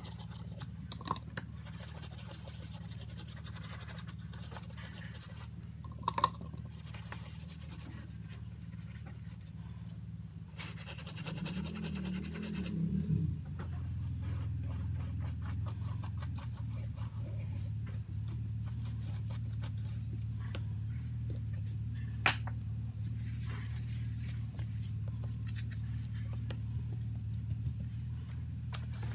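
Brush bristles scrubbing a wet phone circuit board, a scratchy, hissing scrape in stretches with a few sharp clicks, over a steady low hum.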